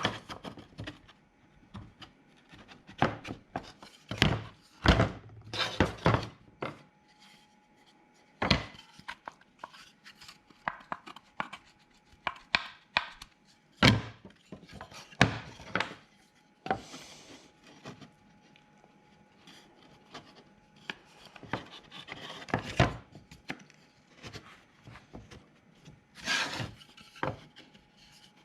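Half-inch Baltic birch plywood parts being fitted together by hand: irregular wooden knocks, taps and rubbing as the pieces are slid and pressed into their joints.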